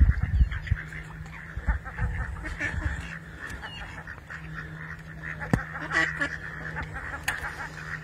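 Mallard ducks quacking repeatedly, with a low rumble during the first three seconds.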